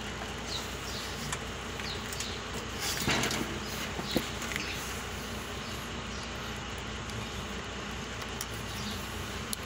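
Steady background buzz with faint, short high chirps repeating about once a second. A brief rustle comes about three seconds in, and a single click just after four seconds.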